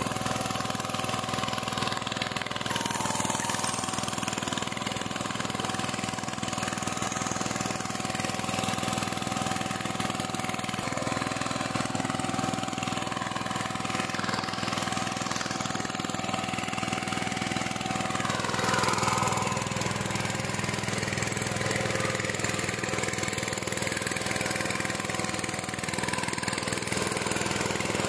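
VST Shakti 130 DI power tiller's single-cylinder diesel engine running steadily under load while it tills between crop rows. It gets briefly louder about two-thirds of the way through.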